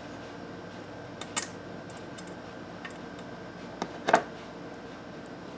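Multimeter test probes clicking and tapping against a power cord's plug prongs and a metal chassis screw during a continuity check: a few light, scattered clicks, the loudest about four seconds in.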